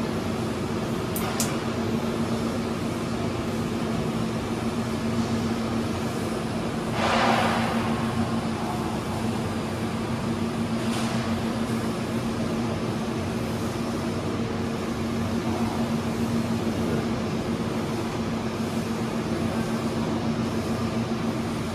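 Steady machine hum with a constant low tone, from running equipment. Two faint clicks about a second in and a brief rustle about seven seconds in.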